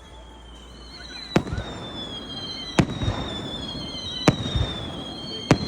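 Fireworks display: aerial shells bursting with four sharp bangs about a second and a half apart, each trailed by a low rumble. High whistling tones glide slowly down underneath.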